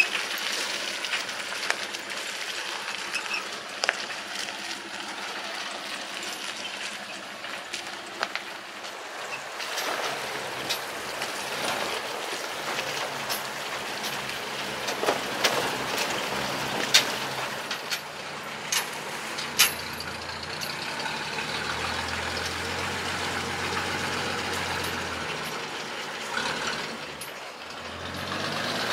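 ZIL-164 dump truck's six-cylinder petrol engine running as the truck drives over a rough, rocky track, with the old bodywork and tipper bed rattling and giving several sharp knocks over bumps. The low engine hum grows stronger in the last third.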